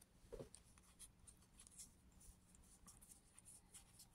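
Near silence with faint ticks and light rustling of trading cards being handled and flipped through.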